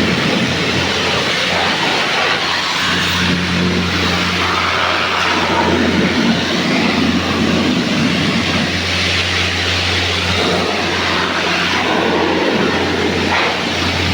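A steady electric machine hum under a loud, even hiss of rushing air or spray, with no break or change in pitch.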